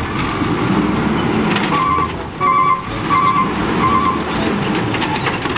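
Natural-gas side-loading garbage truck running at the curb while its automated hydraulic arm grabs and lifts a wheeled cart, a steady low rumble. About two seconds in, four short warning beeps sound at an even pace.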